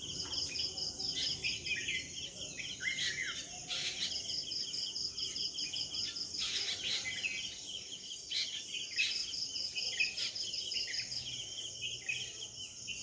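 Outdoor nature ambience: a steady, high, pulsing insect trill like crickets runs throughout, with many short bird chirps and calls over it.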